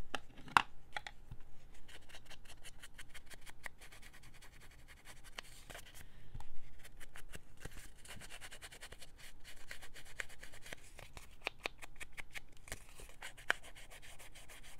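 Paper being cut and handled by hand: rustling and scratching broken by many short crackles and clicks.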